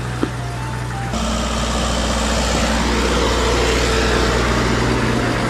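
Ice cream truck's engine running with a steady low hum, a sharp click just after the start, and the sound stepping up louder about a second in.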